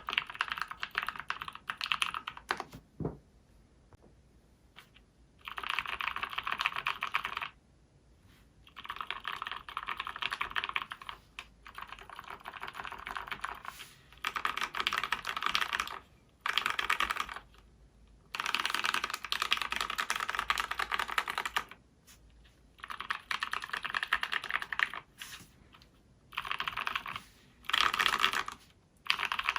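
Typing on a 60% mechanical keyboard built on a DZ60 PCB in an acrylic Tofu case with lubed SP-Star Purple switches. Fast runs of keystrokes, each lasting a second or two, alternate with short pauses, with a longer pause a few seconds in.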